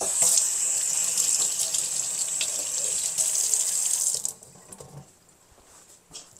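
Kitchen tap running water into the sink for about four seconds, then turned off.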